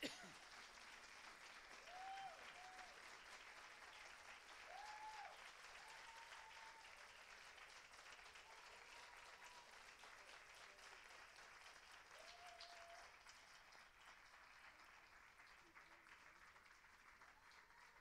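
Audience applauding at length in a small room, with a few short cheers rising over the clapping; the applause eases off slightly toward the end.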